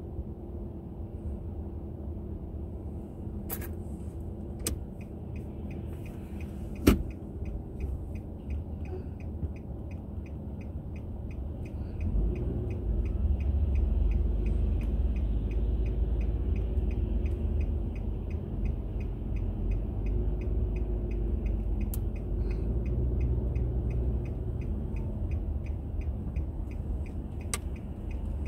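Car engine and road rumble heard from inside the cabin, growing louder about 12 seconds in as the car gets moving. A steady, evenly spaced ticking runs from about 6 seconds in, and there are a few sharp clicks, the loudest about 7 seconds in.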